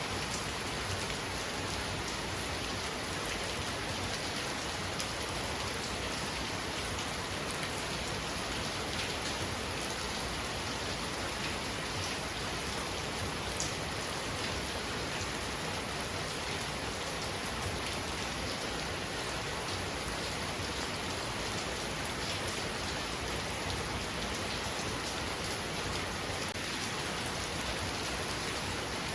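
Heavy rain falling steadily, with many small drop impacts pattering on surfaces.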